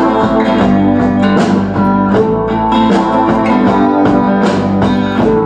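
Music with plucked string notes playing through speakers driven by a TDA2030-based 2.1 home-theatre amplifier board under test. It comes through clean with no hum, the sign that the board's wiring is correct.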